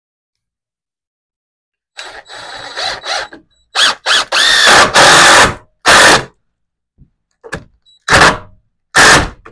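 Power drill driving deck screws into truss lumber in a run of short, loud bursts starting about two seconds in, the motor's pitch rising and falling within some of them, with a few short knocks between.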